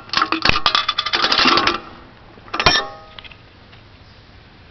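Metal clicking and rattling from a 1950s Victor penny gumball machine's mechanism for just under two seconds, then a single sharp metallic clink that rings briefly, about two and a half seconds in.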